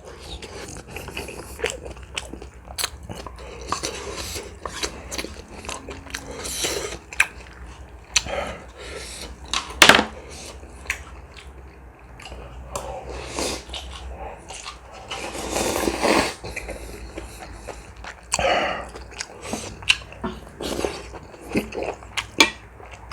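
Close-miked eating of ramen with dumplings and kimchi: chewing with many short wet mouth clicks and smacks, and a few longer noisy swells in between.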